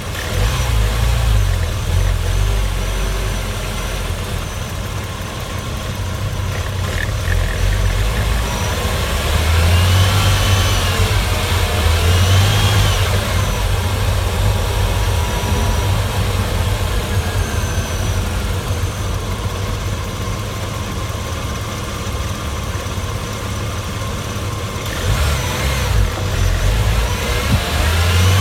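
Porsche Boxster S 3.2-litre flat-six engine running, its revs rising and falling briefly twice near the middle and once more near the end.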